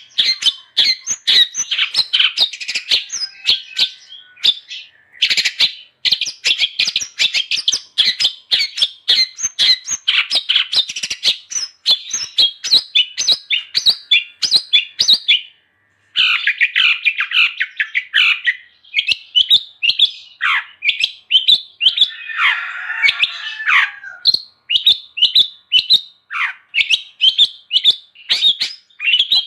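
Long-tailed shrike (cendet) singing energetically: a fast, continuous run of high chattering, squeaky notes, breaking off briefly about 4 and 16 seconds in, with a harsher, lower rasping phrase around 22 seconds in.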